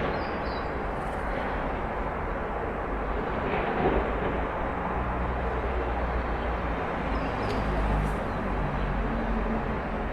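Backyard outdoor ambience: a steady wash of distant noise with a low rumble, and a few short high chirps near the start and again about three quarters of the way through.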